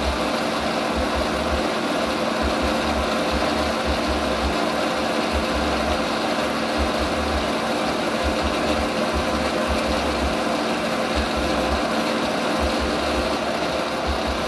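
A woodworking power tool's motor running steadily under load, a constant hum with an uneven low rumble beneath it.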